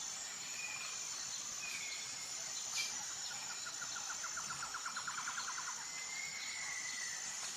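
Crickets chirring steadily, with a few short bird chirps and a rapid trill of several seconds in the middle: a nature ambience of insects and birds.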